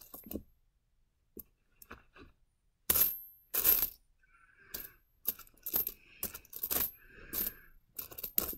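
Pennies clinking against each other as a gloved hand spreads and picks through a pile of them on carpet: scattered clinks, two louder ones about three seconds in, then a quick run of clinks through the second half.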